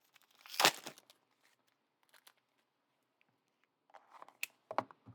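Plastic wrapping being handled, crinkling and tearing. There is a short burst about half a second in and a few crackles near the end.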